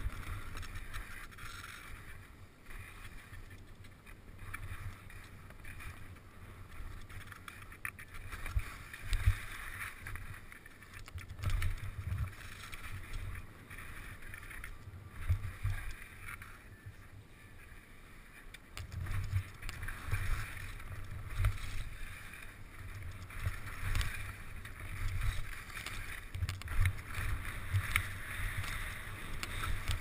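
Skis sliding and scraping over snow on a downhill run, heard from a helmet-mounted camera, with low wind rumble and repeated thumps as the skis ride over bumps.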